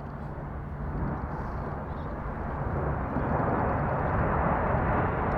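Jet engine noise from a formation of BAE Systems Hawk T1 jets, a broad rushing sound that grows gradually louder as they approach.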